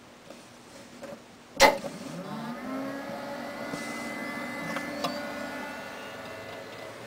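A rocker power switch clicks on sharply. The computer then powers up: its fans and drives spin up with a rising whine over about a second and settle into a steady whir, with a few faint ticks.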